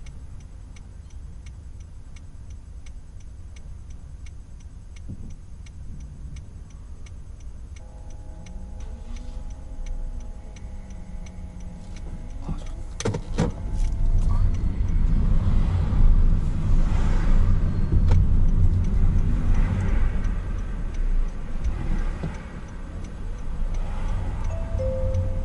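Car's turn-signal indicator ticking steadily inside the cabin over a low engine rumble while the car waits to turn. About halfway through, the car pulls away through the turn and engine and road noise rise and take over.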